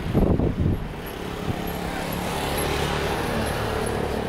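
Rolls-Royce Trent 7000 engines of a Lion Air Airbus A330-900 at taxi power: a steady low drone that slowly gets louder after about a second.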